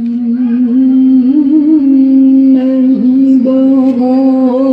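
A young girl's voice reciting the Quran in the melodic tilawah style. It starts abruptly and holds one long, ornamented note with small wavering turns.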